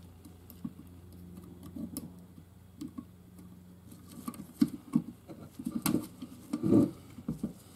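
Hand tools working on a small gearbox shaft on a bench: irregular small metal clicks and taps as circlip pliers are worked at the circlips holding the shaft's bearings, with a few louder knocks in the second half.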